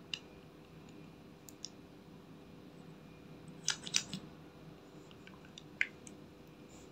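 Light plastic clicks and taps from a lip gloss bottle and its applicator cap being handled, scattered through, with a quick cluster of louder clicks about halfway through.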